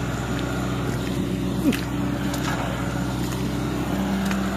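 Diesel engine of a Sumitomo hydraulic excavator running steadily, with a brief sharp sound about one and a half seconds in.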